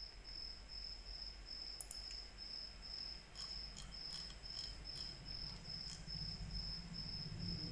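A cricket chirping steadily at a high pitch, about two chirps a second, faint, with a few soft clicks in the middle.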